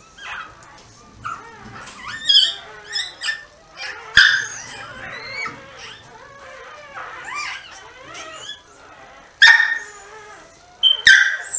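Newborn dachshund puppy crying with short, high squeaks and whimpers, over and over, while it is rubbed in a towel, with a few louder cries standing out.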